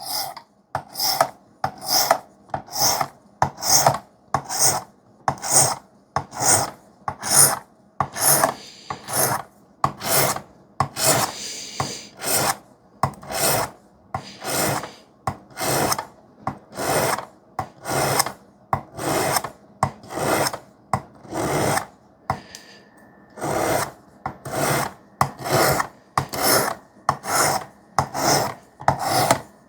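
Knife blade of 3V steel being stroked across a wet 400-grit sharpening stone on a Work Sharp guided sharpener: a steady rhythm of short rasping strokes, about two a second, with a brief pause about three quarters of the way through.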